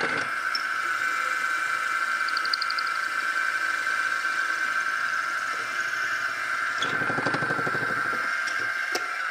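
Wood lathe running with a steady high whine while a drill bit in a drill chuck bores into the spinning pen blank; a rougher, rattling cutting sound rises for about a second around seven seconds in.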